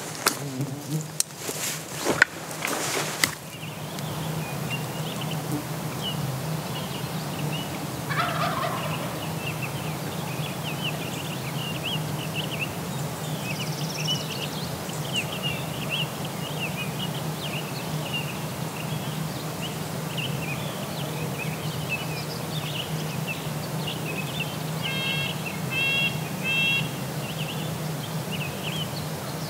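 Wild turkeys gobbling: one falling gobble about eight seconds in and a rattling gobble in three quick bursts near the end, over many short high chirps and a steady low hum. A few sharp knocks in the first three seconds.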